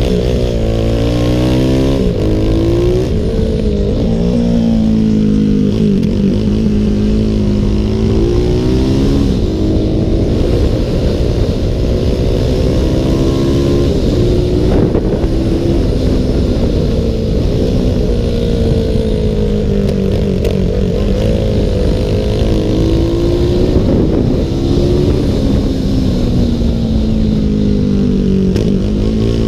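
Honda CG 300 racing motorcycle's engine heard from on board at racing speed, its pitch repeatedly climbing and then dropping back as the rider shifts up and eases off for corners.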